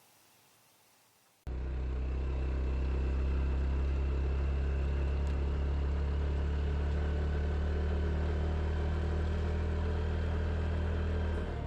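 Honda CT125 Hunter Cub's single-cylinder engine running at a steady pitch, starting suddenly about a second and a half in.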